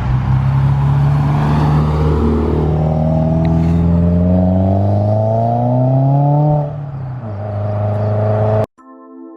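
2017 Subaru WRX's turbocharged flat-four, fitted with an Invidia R400 exhaust, accelerating. Its note rises steadily for several seconds, then eases off about seven seconds in. It is cut off abruptly by soft music near the end.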